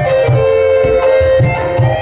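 Live band instrumental: an electronic keyboard holds sustained chords over a steady beat on kendang hand drums.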